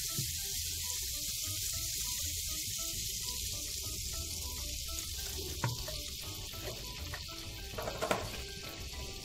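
Butter melting and sizzling in a hot nonstick frying pan, a steady frying hiss.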